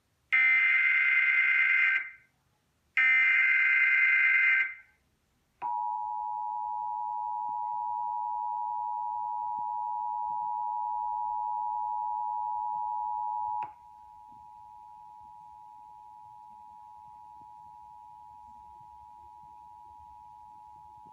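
Emergency Alert System tones: the last two short bursts of the warbling digital SAME header, then the steady two-tone attention signal. The attention signal drops sharply in level about eight seconds after it starts and carries on quieter. It heralds a flash flood warning.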